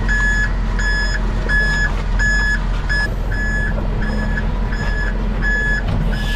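A vehicle reversing alarm beeping steadily, about three beeps every two seconds, over the steady low rumble of a machine's engine running.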